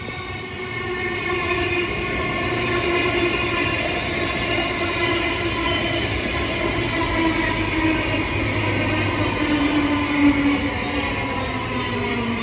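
Brisbane electric suburban train running, with a steady multi-tone whine that drifts slowly in pitch over a running rumble; it grows louder over the first couple of seconds and then holds.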